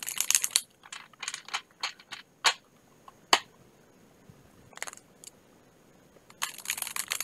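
A deck of tarot cards being shuffled by hand: quick runs of papery clicks and single sharp snaps. A dense run comes at the start and another near the end, with scattered snaps between.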